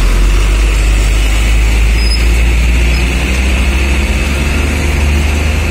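Heavy cargo truck's diesel engine running loudly as the truck drives slowly past close by, a steady deep rumble.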